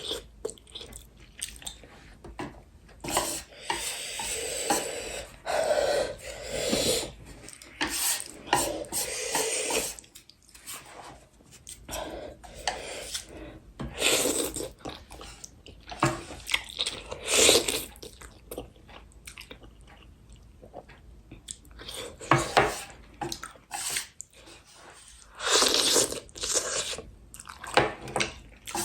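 A person chewing spicy instant ramen noodles and kimchi close to the microphone, in irregular bursts with crunchy bites.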